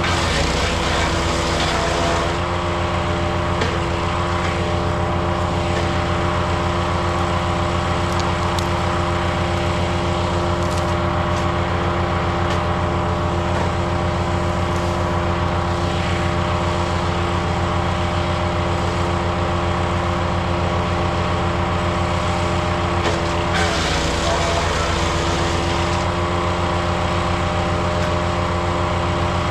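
Powerfist wood chipper's 420cc gas engine running steadily at constant speed, with a rougher hiss swelling over the engine at the start and again about three-quarters of the way through.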